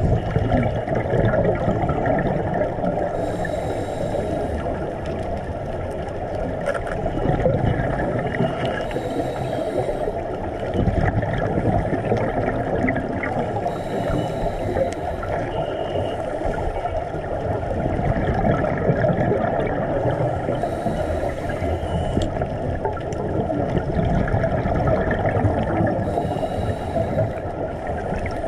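Underwater sound of scuba diving: a steady bubbling, gurgling noise, with a diver's breath hissing through the regulator about every five to six seconds.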